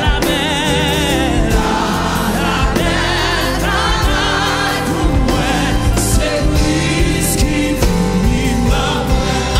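A woman's solo voice singing a Haitian Creole gospel song with vibrato, backed by a group of singers and instrumental accompaniment with a steady beat.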